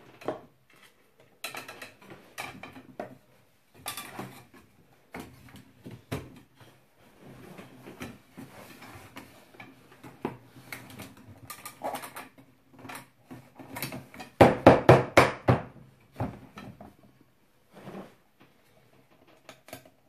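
Wooden drying-rack arms and small metal fittings being handled during assembly: scattered clicks and knocks, with a quick run of about six sharp clacks a little past two-thirds of the way through, the loudest part.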